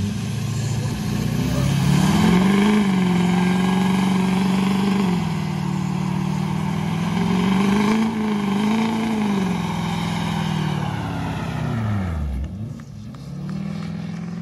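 Lifted square-body crew-cab pickup doing a burnout: its engine is held at high revs, the pitch wavering slightly, over the hiss of spinning rear tyres. About twelve seconds in, the engine note drops sharply and then climbs back up.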